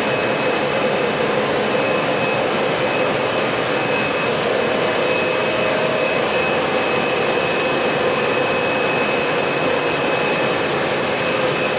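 RS32 ride-on industrial floor cleaning machine running steadily: a constant rushing noise with a steady high whine from its suction motor.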